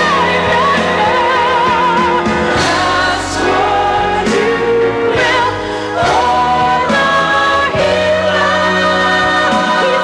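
Gospel choir singing with vibrato over a full band accompaniment.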